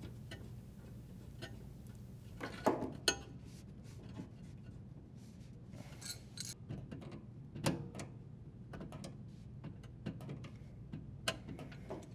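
Brass fitting of a braided water supply line being threaded onto a dishwasher's water inlet valve: scattered light metallic clicks and ticks, a few louder ones, over a low steady hum.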